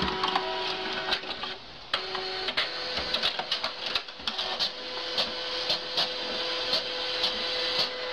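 Desktop fax machine running a page through: a steady mechanical whirr with regular clicks, about two to three a second.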